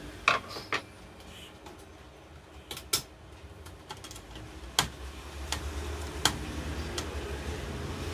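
Scattered sharp clicks and taps, about seven in all and unevenly spaced, from hands and a tool handling the plastic and metal parts inside an opened HP LaserJet 1020 Plus laser printer.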